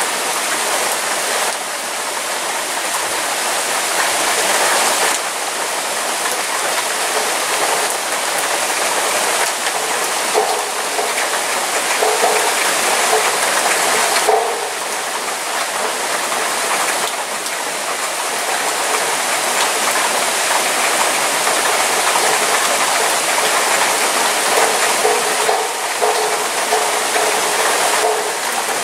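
Heavy rain pouring down in a thunderstorm downpour: a dense, steady hiss of falling and splashing water that swells and eases slightly a few times.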